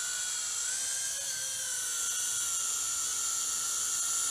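UDI RC U829A toy quadcopter's electric motors and propellers whining steadily, the pitch drifting up and back down slightly as the throttle changes about a second in.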